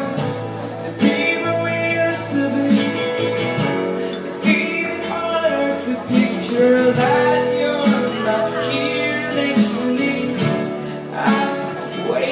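Live band music: singing over strummed acoustic guitar, recorded on a phone.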